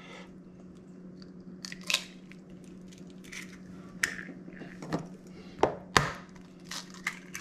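A hen's egg being cracked and its shell broken open over a bowl of fish filling: a handful of sharp, separate cracks and taps, over a steady low hum.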